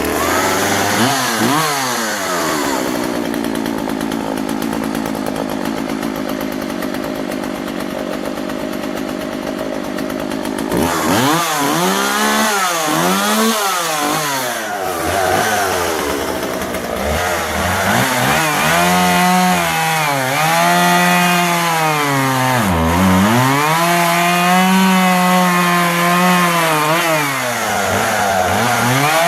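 Husqvarna 141 40cc two-stroke chainsaw running: it cuts in suddenly and revs, idles for several seconds, then is revved up and down and held at high revs with brief dips in pitch, as in cutting wood. The owner feels it runs slightly lean at the top end in the cut.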